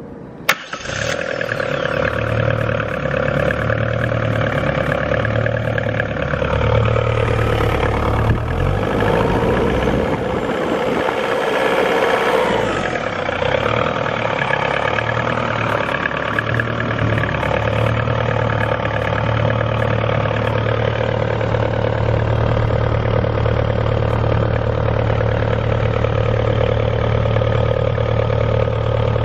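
Perkins 404D-22T 2.2-litre turbocharged four-cylinder diesel in a silent power pack, cranked with the key and catching about a second in after a sharp click, then running steadily. Between about 7 and 13 seconds its note glides and a hiss rises over it before it settles back to a steady run.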